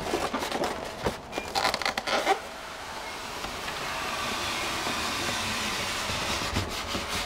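Cardboard box handling: a few knocks and scrapes, then a long steady scraping hiss of a cardboard lid sliding off its box, growing slightly louder as it goes.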